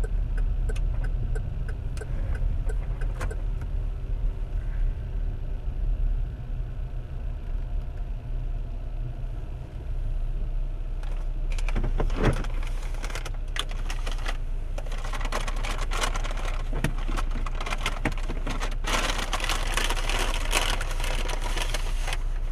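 Inside a car: steady low engine and road rumble as it rolls slowly and pulls into a parking space, the engine still idling after it stops. From about halfway, a string of clicks and rustling as things are handled beside the driver's seat.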